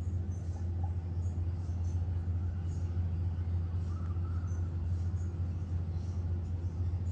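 Steady low rumble of distant city traffic, with faint bird chirps now and then.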